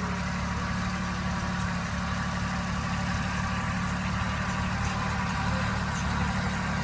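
Kubota 21 hp compact tractor's diesel engine running steadily while it drives along and powers a boom sprayer's pump. It grows slightly louder as the tractor comes closer.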